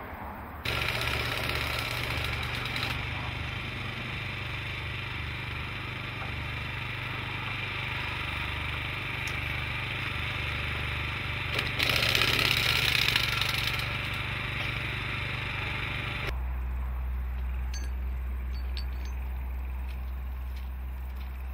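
A small engine running steadily, louder for about two seconds in the middle, stopping abruptly about three-quarters of the way through. Wind rumbles on the microphone after that.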